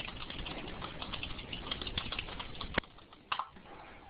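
Computer keyboard typing: a quick run of key clicks, with one sharper click near the end.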